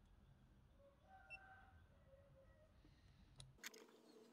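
Near silence: faint clicks from handling a FNIRSI DSO-TC3 handheld component tester, with one short, faint high beep about a second in and a few clicks near the end.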